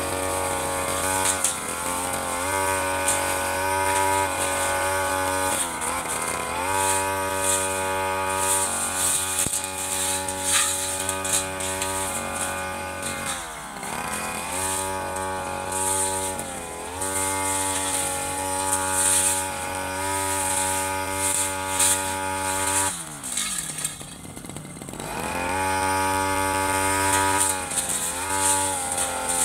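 Stihl FR 3001 two-stroke backpack brush cutter running at high revs while its large blade cuts grass and weeds. The revs dip briefly a few times as the throttle is eased. Near the end they fall almost to idle for about two seconds, then rise again.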